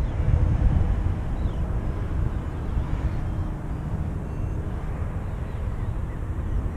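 Wind blowing over a small action camera's microphone in flight under a paraglider: a steady low rumble with no other distinct sound.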